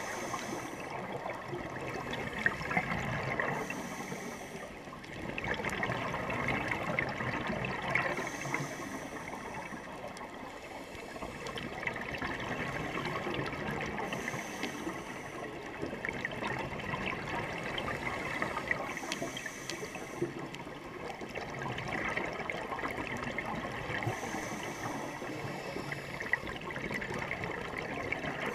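Scuba divers breathing through their regulators underwater: a burst of exhaled bubbles about every five seconds over a steady watery hiss, with faint scattered ticks.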